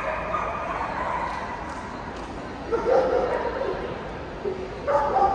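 A dog whining and yipping in high-pitched cries, loudest in short bursts about three seconds in and again near the end.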